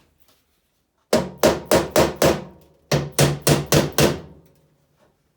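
Hammer blows on the steel of a Chevy C10 pickup door, two quick runs of about five ringing strikes each, pounding the window regulator studs through the door.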